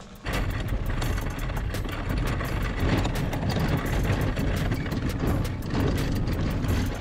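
Fishing kayak rolling on a wheeled cart over asphalt: a steady rumble of the small wheels with rattling clicks from the hull and the rods and gear aboard, starting a moment in.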